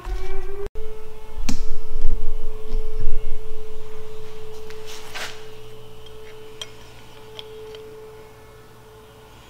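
Outdoor tornado warning siren sounding a steady held tone during its routine test, after winding up, fading slowly over the later seconds. A few sharp knocks and clicks sound over it.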